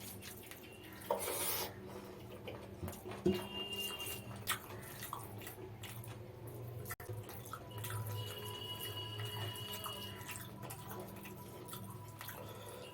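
Close-up eating sounds from mutton biryani being eaten: wet chewing, smacking and clicking of the mouth, with a louder rustle about a second in.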